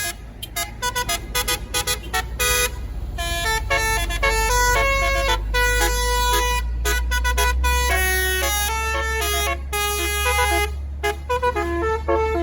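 A tour bus's telolet basuri multi-tone horn plays a quick melody of short staccato notes and longer held notes. The bus's engine rumbles low underneath and grows louder about halfway through.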